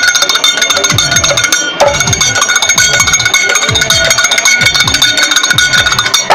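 Karadi majalu folk drum ensemble playing: large karadi drums beaten in a steady rhythm, each stroke a low boom that drops in pitch, over continuous metallic ringing of hand cymbals.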